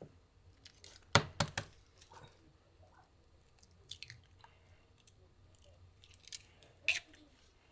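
Eggshells being cracked by hand over a mixing bowl: a quick cluster of three sharp cracks about a second in, the loudest, then single softer cracks around four and seven seconds in.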